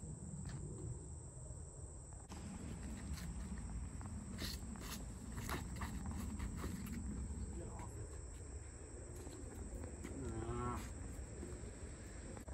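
An animal call: one drawn-out call that bends in pitch, about ten seconds in, over a steady low rumble and a few sharp clicks.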